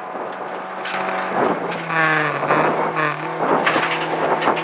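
Toyota RAV4 rally car's engine driven hard at speed on a gravel stage, heard from inside the cabin. It revs up about a second in, then the pitch rises and drops repeatedly as the driver works through the gears, with sharp knocks and clatter over it.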